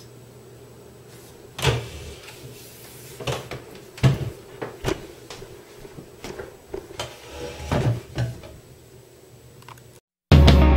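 Scattered knocks and thumps, about half a dozen, as a person gets up from a wooden chair at a table and moves off. Near the end it cuts to loud heavy rock music.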